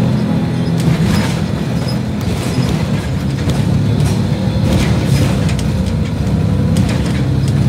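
Interior of a moving city bus: steady engine and road rumble, with occasional rattles and knocks from the bus body.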